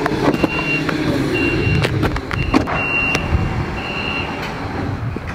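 A high electronic warning beep repeating about once a second over a low steady rumble, with a few sharp knocks as a vehicle door is opened and someone steps out onto pavement.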